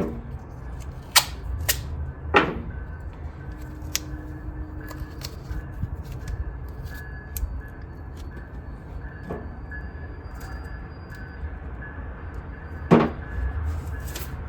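Scattered sharp clicks and knocks of hand work on an engine, tools and parts being handled, over a steady low hum. The loudest knocks come about two seconds in and near the end.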